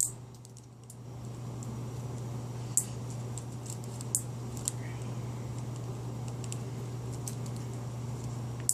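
A few sharp, isolated plastic clicks as zip ties are handled and adjusted around the bearings, over a steady low hum.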